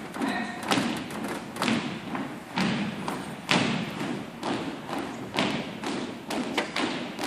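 Footsteps of a squad marching in step on a wooden gym floor: a steady beat of shoe stamps and heel strikes, a heavy stamp about once a second with lighter steps between, ringing in the large hall.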